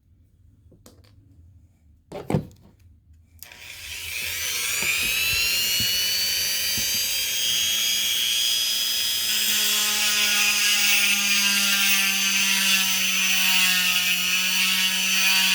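Chicago Electric rotary tool with a diamond bit: a few faint clicks and a sharp click, then the motor spins up in a rising whine and runs at a steady high pitch, drilling into a citrine crystal.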